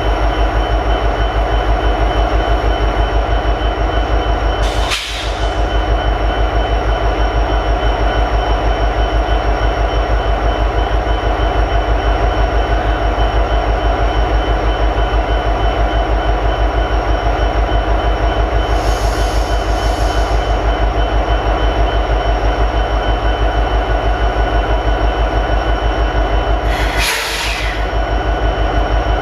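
EMD 16-710 two-stroke V16 diesel prime mover of an SD70ACe locomotive idling, a steady pulsing drone with bass boosted. The sound dips briefly with a sharp click twice, about five seconds in and near the end.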